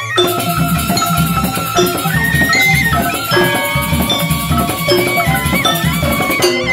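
Balinese joged bumbung gamelan music: a held, sliding flute-like melody over struck bamboo-keyed notes, with a steady drum beat that comes in about half a second in.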